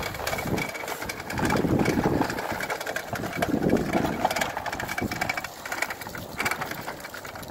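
A child's plastic push-along toy lawnmower rattling and clicking in a fast, steady run as its wheels roll over paving slabs and grass. Twice, about two and four seconds in, a louder low rumble swells under the clicking.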